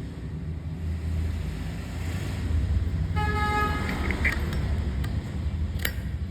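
Steady road-traffic rumble with a vehicle horn honking once, briefly, about three seconds in.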